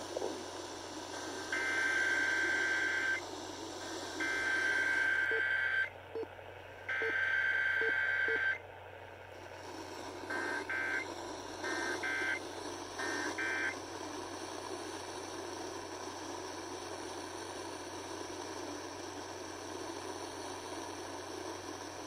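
Emergency Alert System data bursts broadcast by an AM station and heard through a radio's speaker during a Required Weekly Test: three shrill, buzzing header bursts of about one and a half seconds each, then, after a short gap, three brief end-of-message bursts. A steady background hiss of dead air follows.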